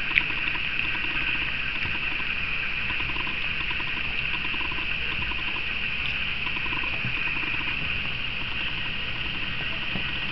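Miniature dachshund puppies eating cottage cheese from a shared bowl: soft, quick licking and smacking sounds, with one sharp click just after the start, over a steady high hiss.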